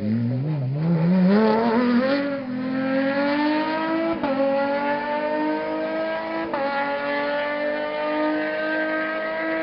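Rally car's engine accelerating hard away from a corner, its pitch wavering at first and then climbing steadily. It drops sharply and climbs again twice, about four seconds in and past six seconds, as the driver shifts up.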